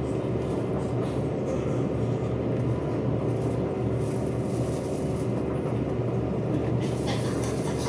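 A steady low mechanical hum with a constant whine, like a motor running, unchanging throughout.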